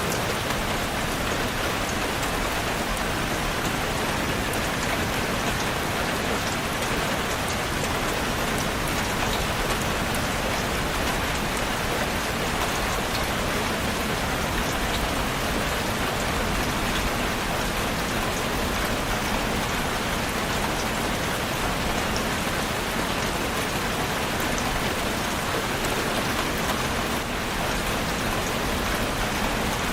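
Steady rain falling, a constant even hiss with scattered drop patter.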